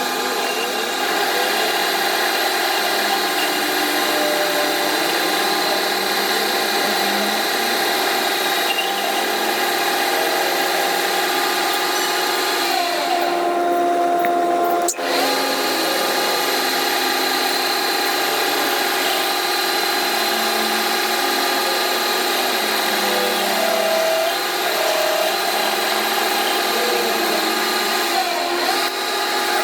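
Electric power tool running steadily with a whining motor, with a brief drop and a click about halfway through and a short slide in pitch near the end.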